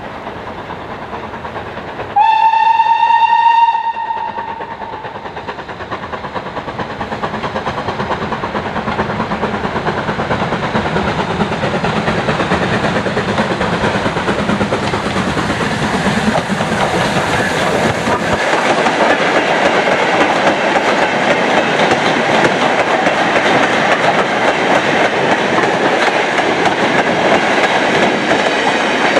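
Steam locomotive gives one short whistle blast of about a second and a half, about two seconds in. Then it comes closer and louder hauling a freight train. From about halfway its freight wagons rumble and clatter past over the rail joints.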